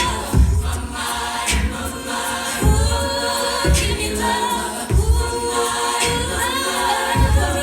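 All-female a cappella group singing in several-part harmony, with a steady low beat about once a second and sharp percussive hits between.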